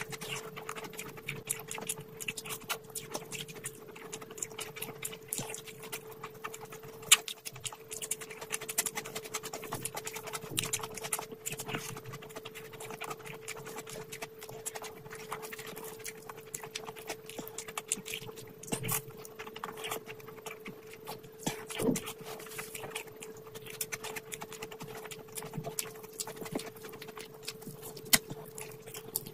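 Close-miked eating: wet chewing, lip smacking and mouth clicks as rice and fried fish are eaten by hand, with fingers squishing through the food and a few sharper clicks. A steady faint hum runs underneath.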